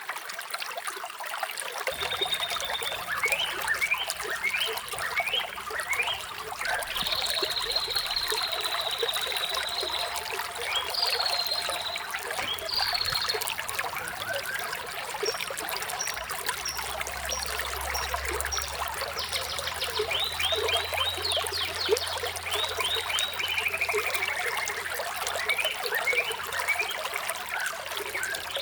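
Running water trickling steadily, with songbirds chirping over it: quick falling chirps, high trills, and a run of short high notes.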